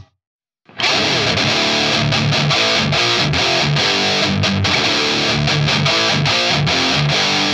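Heavily distorted electric guitar, a Gibson Les Paul Custom tuned to D standard, playing a metal riff with repeated short low notes through a BOSS Metal Zone MT-2W pedal in its Custom mode. It starts after a brief silence of under a second.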